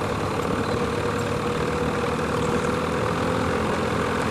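A motor running steadily at idle with an even hum, most likely the raft's outboard motor.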